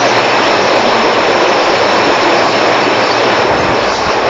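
Steady rush of flowing river water, an even noise with no pitch to it.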